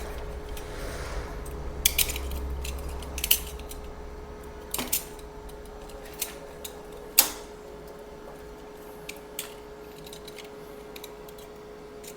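Irregular sharp clicks and light metallic clinks of hand tools and small wiring parts being handled, about ten in all with the loudest about seven seconds in, over a faint steady hum.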